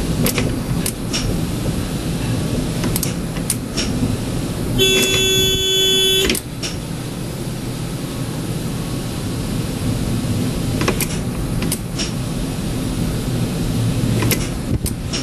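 Tram running with a steady low rumble and scattered sharp clicks. About five seconds in, a horn sounds once, a steady note held for about a second and a half before cutting off.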